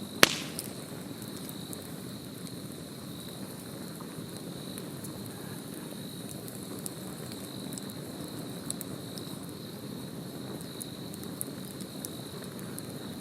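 Wood campfire crackling with scattered small pops, and one sharp, loud crack about a quarter second in. Insects trill steadily and high-pitched underneath.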